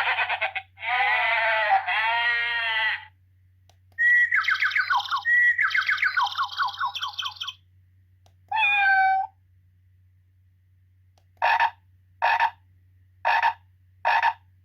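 Wireless doorbell chime unit playing a run of different short ringtone clips through its small speaker, one after another with pauses, as the tones are tried in turn. Several have gliding, animal-like pitch, and it ends with four short blips.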